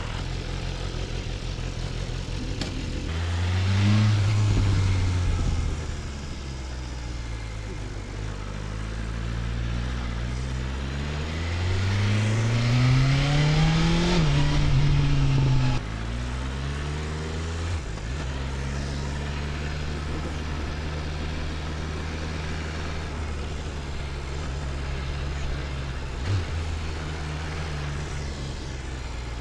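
BMW S1000RR inline-four engine running, revved briefly about three seconds in. From about nine seconds it pulls with a long rising pitch, drops slightly and holds, then the throttle shuts off suddenly near sixteen seconds and it settles back to a steady run.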